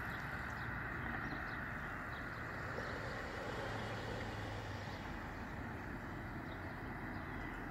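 Steady outdoor background noise, a low even rush such as distant traffic, wind or gentle surf would make, with a few faint high chirps now and then.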